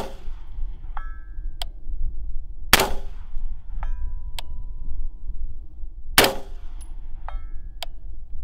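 Three rifle shots from an AR-style carbine, about three seconds apart. About a second after each one comes a faint, short metallic ping: a distant steel target being hit. A steady low wind rumble on the microphone runs under it all.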